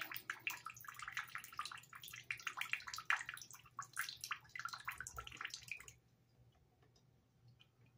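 Water splashing and running, with an uneven patter, that cuts off suddenly about six seconds in, leaving only a few faint clicks.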